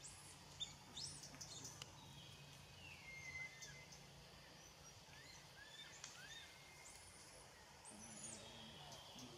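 Faint, short, high-pitched squeals from a baby macaque, each rising and falling in pitch: a cluster in the first two seconds, a few single lower calls in the middle, and two high squeals near the end, over a steady low hum.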